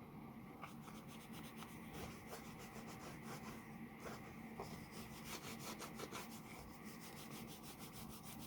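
Faint rubbing and scratching of carnauba wax being worked into a leather knife sheath, in quick repeated strokes that come thickest in the second half.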